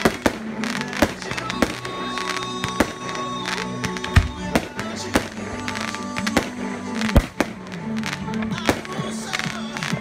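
Aerial fireworks firing in quick irregular bangs and pops, the loudest about four and seven seconds in, with music playing underneath.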